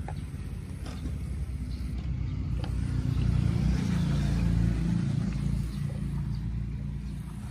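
A motor vehicle's engine rumbling, growing louder about three seconds in and then fading, with a few faint clicks.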